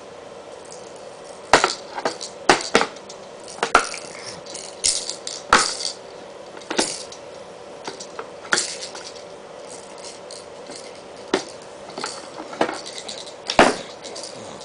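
Irregular clacks and rattles of a baby's toy rattle being shaken and knocked about, a dozen or so sharp hits spread unevenly, some with a brief rattly trail.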